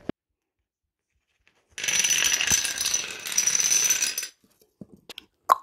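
A long spiral of small toy dominoes toppling in a rapid chain, a dense clatter of little clicks lasting about two and a half seconds, starting about two seconds in. A few last separate clicks come near the end.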